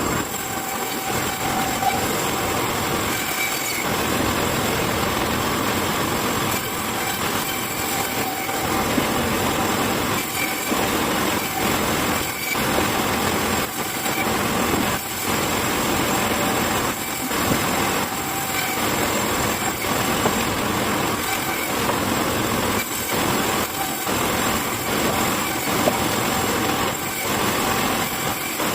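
A woodworking machine running steadily and cutting wood, with a constant high whine over the cutting noise, which drops out briefly every second or so.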